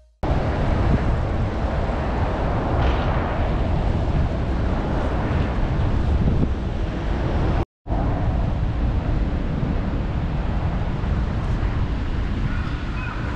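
City street ambience: a steady wash of traffic noise with wind rumbling on the microphone. It drops out for a moment about halfway through.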